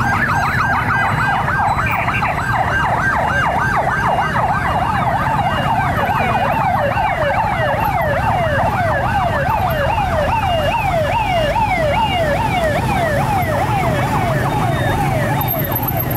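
Fire truck's electronic siren in a fast yelp, about three pitch sweeps a second. About five seconds in, the sweeps change from smooth up-and-down to sharp rising ones. Underneath runs the steady noise of road traffic.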